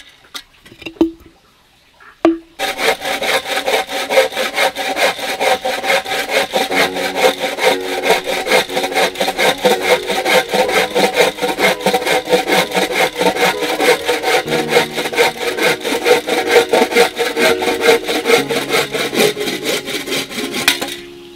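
Hand saw cutting through wood in rapid, even back-and-forth strokes, starting after a short quiet pause broken by a couple of knocks.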